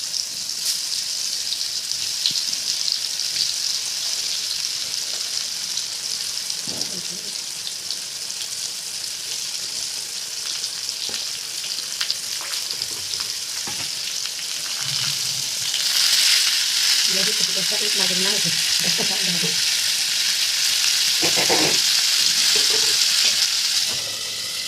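Pointed gourd (potol) slices shallow-frying in hot oil in a pan: a steady sizzle that grows louder about sixteen seconds in, with a few light clicks.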